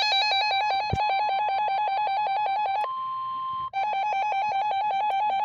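Weather radio alert alarm: a loud, fast-trilling warble like a telephone ring. About three seconds in, it gives way for under a second to a single steady alert tone, then resumes. It signals that a severe thunderstorm warning is being issued.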